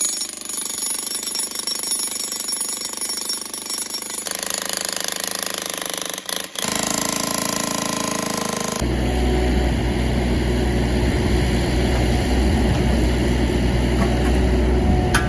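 Mini excavator running while it breaks out and lifts old concrete foundation. The sound changes abruptly about four seconds in and again near nine seconds, where it becomes louder with a deep engine rumble.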